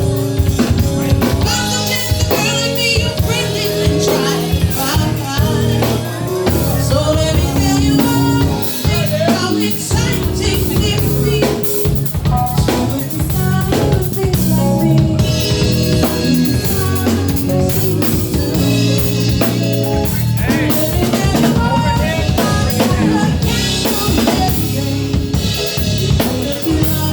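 Live band playing loudly through a club PA during a sound check, with the drum kit (kick, snare and rimshots) prominent over bass and other instruments.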